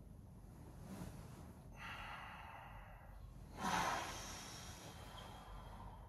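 Faint rustling of a duvet and a man's heavy breathing as he sits up in bed, with a louder sigh a little past halfway.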